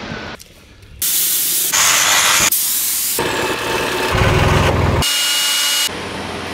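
A quick series of short sound clips, each cut off abruptly: mostly rushing, hissing spray noise, with a deep rumble about four seconds in.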